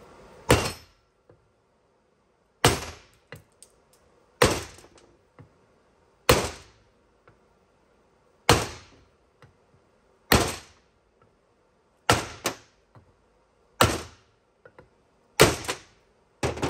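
Hammer blows on a 21 mm socket set against the water outlet tubes of a 6.0 Powerstroke oil cooler, driving the outlets out of the housing while working back and forth between them. About ten sharp metal strikes, roughly one every two seconds, with a few lighter taps between.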